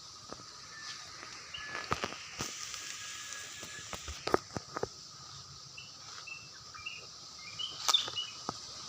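Rural outdoor ambience: a steady high drone and hiss, scattered clicks and knocks, and a run of short high chirps in the second half.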